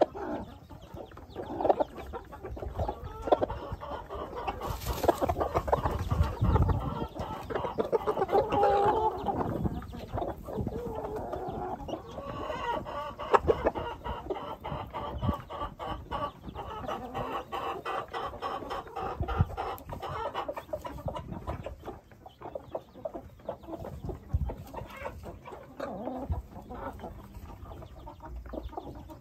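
A flock of chickens clucking and calling while they forage. It is a continuous stream of short, overlapping clucks, with a louder run of calls about eight to nine seconds in.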